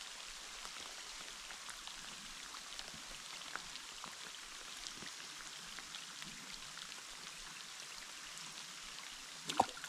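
Light rain falling steadily, with scattered drops ticking, and a brief sharp sound near the end.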